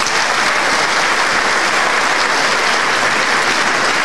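Applause from the members of a legislative chamber, steady and sustained.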